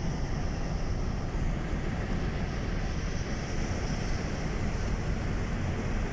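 Steady road and wind noise inside a moving car's cabin.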